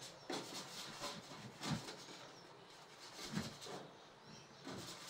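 Paintbrush rubbing and dabbing paint on a wooden palette: faint, irregular scrubbing strokes with a few dull taps.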